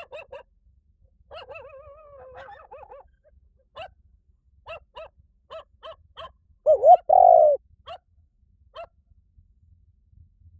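Spotted dove calling: a series of short, low cooing notes, with a wavering trill a second or so in and two much louder notes about seven seconds in.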